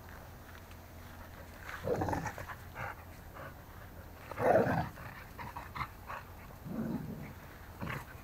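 Two dogs play-fighting, with four short dog noises, the loudest about halfway through.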